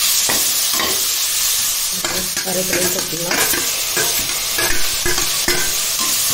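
Chopped onions and tomatoes sizzling in oil in an aluminium pressure cooker while a perforated metal ladle stirs them, its repeated scrapes and knocks against the pot laid over a steady frying hiss.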